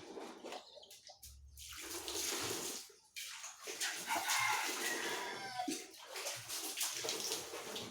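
Wet carpet being scrubbed with water and cleaning solution during machine washing: uneven swishing and splashing that comes and goes, with short pauses.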